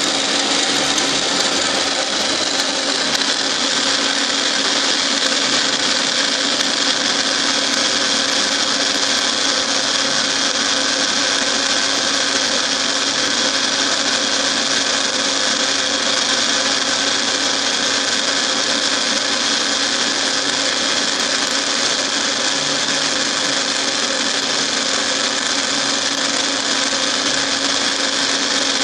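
Milling machine running, its cutter milling a helical groove in a worm-shaped workpiece that a geared dividing head turns as the table feeds by hand. A steady hum under an even hiss, with no change in pace.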